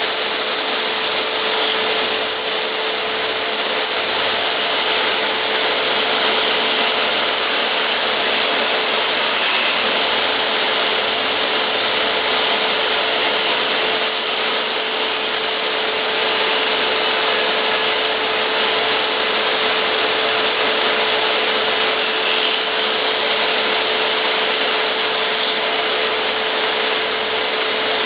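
Power sander running steadily on wood: a constant motor hum under an even rough hiss, unbroken throughout.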